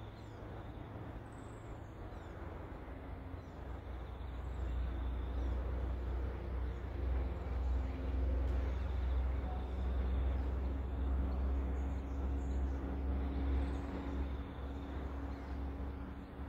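A low engine drone that swells over several seconds and eases off near the end, with faint bird chirps above it.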